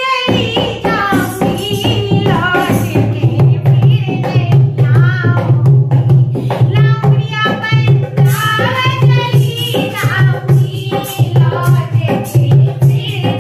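A woman singing a languriya folk song to her own dholak. The dholak comes in right at the start with a steady beat of deep bass strokes and sharper slaps, and the sung phrases rise and fall over it.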